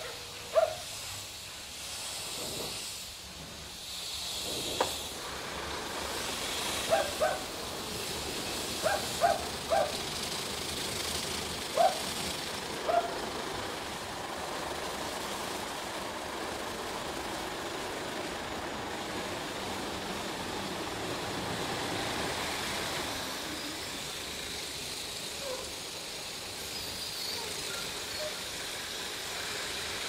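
Stargate S6 automatic car wash running: its rotating brushes scrub the car with water spraying, a steady hiss. Several short clunks in the first half.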